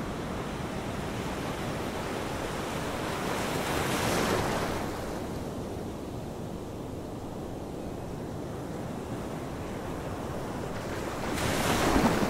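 Ocean surf washing onto a shore: a steady rush of waves, swelling louder about four seconds in and again near the end.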